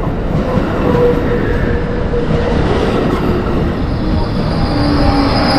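Train passing close by: a loud, steady rumble of wheels on rail, with a high wheel squeal coming in near the end.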